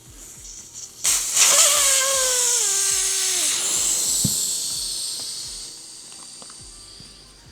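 Air rushing out of a bicycle tire valve, starting suddenly about a second in with a loud hiss and a whistle that falls in pitch, then dying away over several seconds as the tire goes flat.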